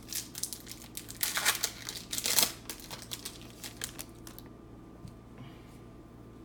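Crinkling and rustling as trading cards and their pack wrapper are handled and the cards straightened, with small clicks. The loudest crinkles come around one and a half and two and a half seconds in, and it dies down after about four seconds.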